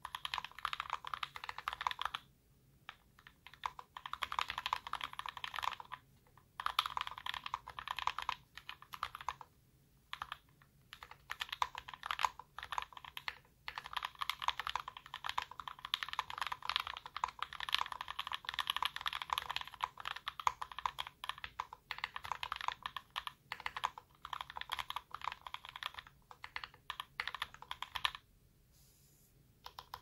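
Typing on a YMDK Wings hotswap mechanical keyboard with lubed Kailh Box Cream linear switches, PBT keycaps and a sorbothane-damped aluminum case. A fast, even stream of keystroke clacks comes in runs with brief pauses, and a longer pause near the end.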